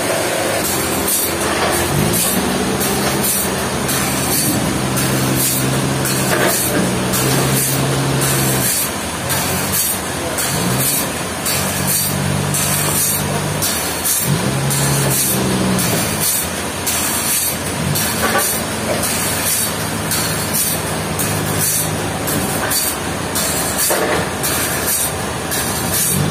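Sawmill machinery running through a log: a steady motor hum that drops and recovers in pitch several times, with a fast high ticking over it.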